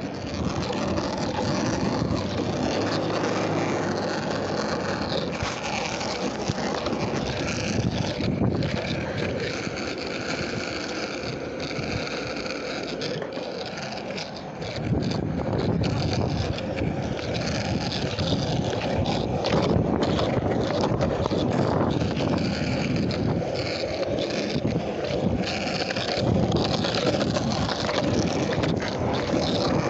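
Skateboard wheels rolling over pavement: a continuous rough rumble that grows heavier and rougher about halfway through.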